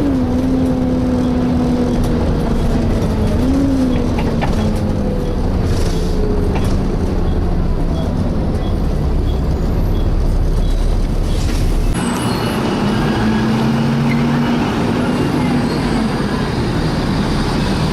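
Volvo B7TL double-decker bus running in service, heard on board, with its engine cooling fan giving a steady hoover-like whirr. A humming tone glides down and up as engine and fan speed change. The sound changes abruptly about twelve seconds in.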